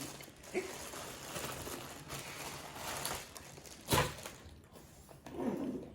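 Quiet rustling and handling noises at a table, with one sharp knock about four seconds in.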